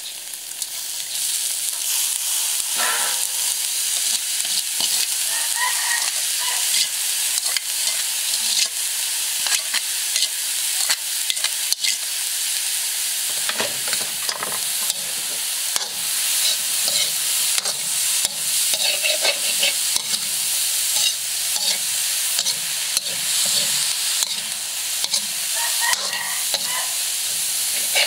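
Red ant eggs stir-frying in a hot steel wok: a steady sizzle with a metal spatula scraping and clicking against the pan as the food is turned. The sizzle swells just after the start as the eggs go into the wok.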